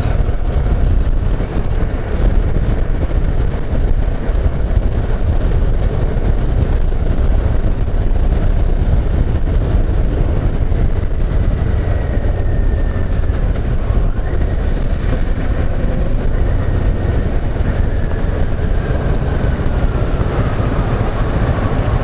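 Kawasaki Versys 650 parallel-twin engine running steadily under way, heard from the rider's microphone amid heavy wind rush.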